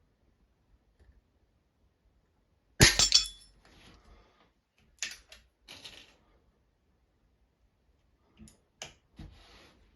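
A pre-charged air rifle, an Anschütz 9015 HP, fires one sharp shot about three seconds in. Several quieter metallic clicks and clinks follow over the next few seconds.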